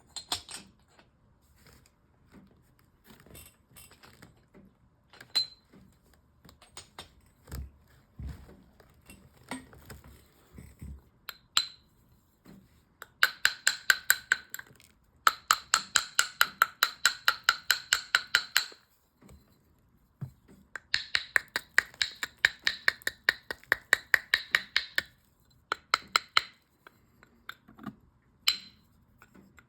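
Hard, glassy stone slabs clinking and ringing against each other as they are handled, with scattered single clicks and two long runs of fast clinks in the middle.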